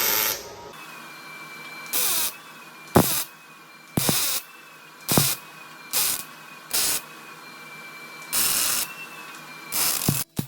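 A handheld power tool on the muffler's sheet-metal patch, triggered in about eight short bursts of under a second each. After several bursts its whine falls away as it spins down.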